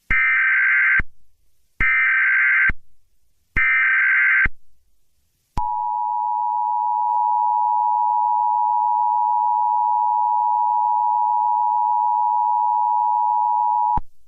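Emergency Alert System tones opening a new alert: three one-second bursts of the SAME digital header, a harsh buzzy warble, then the two-tone EAS attention signal held for about eight seconds before it cuts off.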